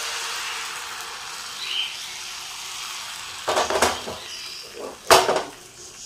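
Batter sizzling in a hot ghee-greased non-stick frying pan as it is poured, a steady hiss, followed by a few clinks of a utensil against cookware about three and a half seconds in and one sharper knock about five seconds in.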